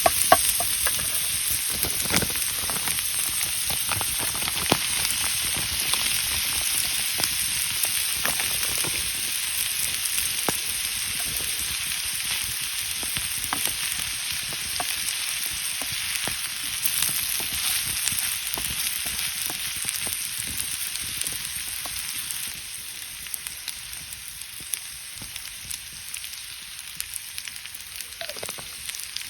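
Food sizzling and frying in a pan over a campfire, a steady hiss with scattered sharp pops. It slowly fades over the second half.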